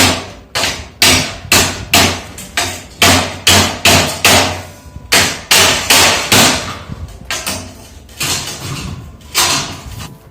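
Repeated hammer blows at about two a second, each with a short ring, pausing briefly about halfway and coming less evenly near the end.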